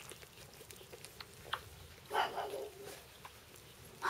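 Pug puppies squeaking and whimpering in the litter, with one louder cry about two seconds in, amid faint clicks as the puppies move around.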